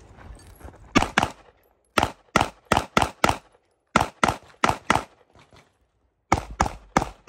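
Staccato P pistol firing rapid shots in quick strings: a pair, then five, then four, then four, about three shots a second within each string, with short pauses between strings.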